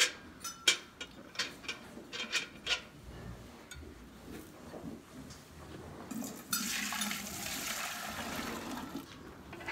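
A few light metal clinks of stainless steel milk pails being handled, then, about six and a half seconds in, milk pouring steadily from a pail into a stainless steel milk can for about three seconds.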